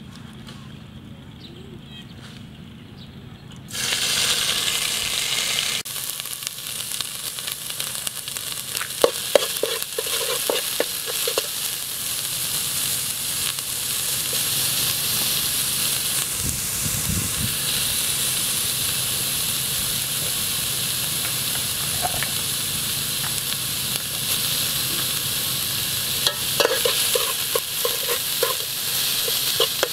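Yellow spice paste frying in hot oil in an aluminium pot, starting suddenly about four seconds in as a loud, steady sizzle. A metal utensil stirs it, scraping and clicking against the pot in short spells.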